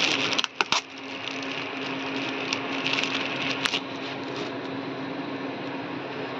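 Clear polythene bag rustling and crinkling as it is pulled off a subwoofer bass tube by hand, with sharper crackles in the first second and again around three seconds in. A steady low hum runs underneath.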